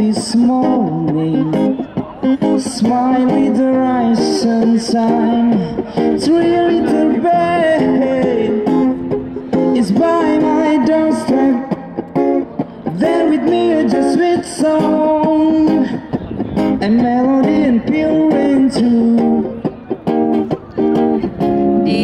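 Acoustic guitar strummed steadily with a voice singing a pop-reggae melody over it.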